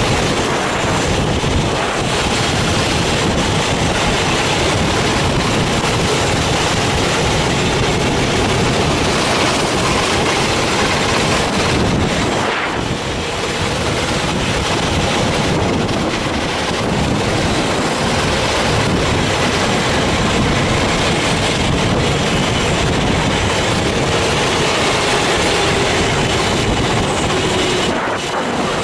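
Racing kart engine heard from an onboard camera, running steadily at speed along the straight. It eases off briefly about halfway through and again near the end, as the kart slows for a tight corner.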